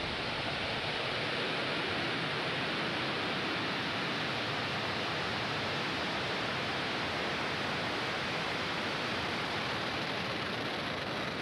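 Falcon 9 first stage's nine Merlin 1D engines at liftoff and during the first seconds of climb: a steady, even rushing noise with no let-up.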